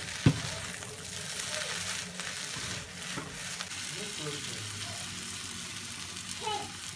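Shredded parotta and egg sizzling in a frying pan while being stirred with a wooden spatula, with one sharp knock just after the start.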